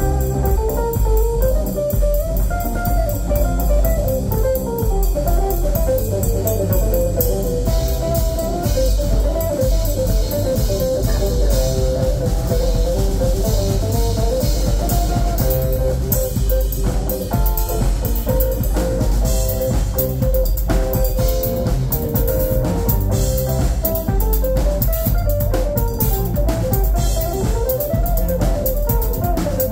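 Live rock trio playing instrumentally: a lead electric guitar melody over bass guitar and a drum kit, with busier cymbal hits in the second half.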